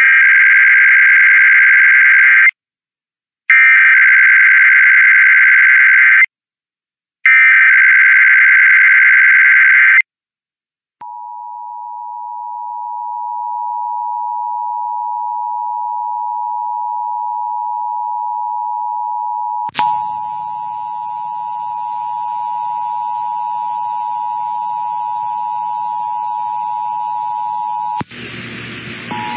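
Emergency Alert System test signal: three bursts of the digital SAME header, a harsh warbling data screech, each lasting about three seconds with short gaps, then after a second of silence the steady two-tone EAS attention signal. A click about two-thirds of the way through brings faint noise under the held tone, and a louder burst of static-like noise joins it near the end.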